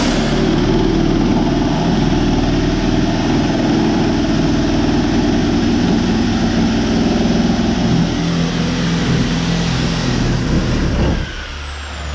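A motor-driven machine starts abruptly and runs steadily and loudly with a high whine for about eleven seconds, then switches off, its whine falling as it winds down.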